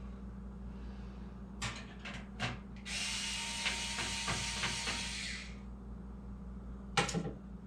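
A few sharp clicks, then a small powered screwdriver whirs for about two and a half seconds, backing a screw out of a PC motherboard. A sharp clatter follows near the end.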